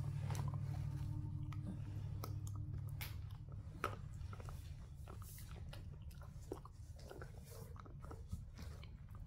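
A dog gnawing a hard bone-shaped chew treat, with irregular clicks and crunches of teeth on the chew and one sharper crack about four seconds in. A low steady hum sits underneath at the start and fades away over the first few seconds.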